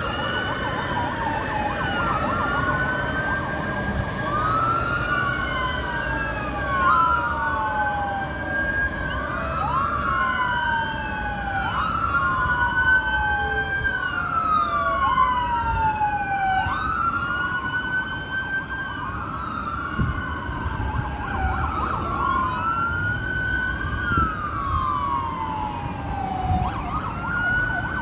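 Emergency vehicle sirens wailing, more than one at once and out of step. Each sweeps up quickly and slides back down over a couple of seconds, over a steady low traffic rumble.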